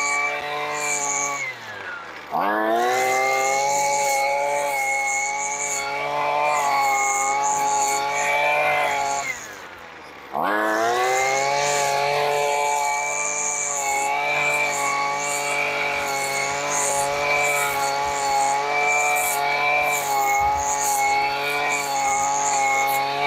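Two-stroke gas string trimmer running at full throttle while cutting grass. Twice the throttle is let off, about two seconds in and again about ten seconds in: the engine winds down toward idle, then revs straight back up.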